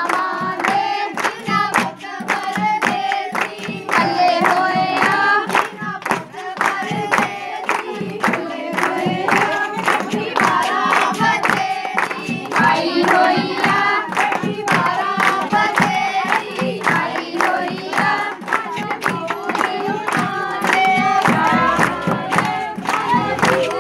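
Group of women singing a folk song together, with steady hand-clapping keeping the beat.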